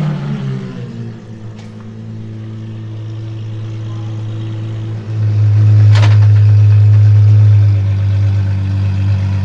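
Apollo IE's V12 engine drops from a falling rev to a steady low engine speed. About five seconds in it gets suddenly louder at the same pitch, with a single sharp pop about a second later.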